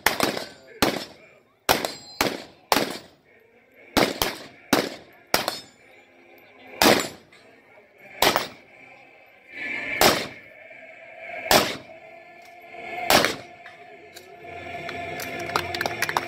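Rifle fire: about fifteen single shots, quick strings of shots in the first six seconds, then slowing to single shots about a second and a half apart. A steady rustling noise follows near the end.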